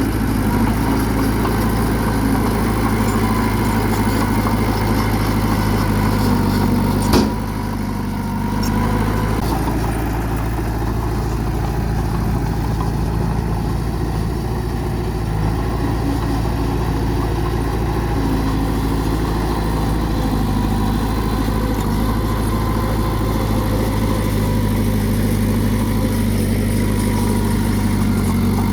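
Bulldozer's heavy diesel engine running steadily, with one sharp knock about seven seconds in.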